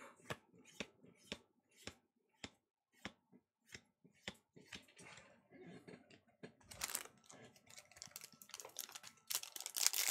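Pokémon trading cards flicked through one at a time, a sharp snap about every half second, then the crinkling of a foil Evolutions booster pack wrapper being handled, starting about two-thirds of the way through and loudest near the end.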